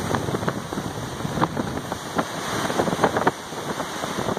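Hurricane wind and rain, the wind buffeting the microphone: a steady rushing noise with scattered short crackles.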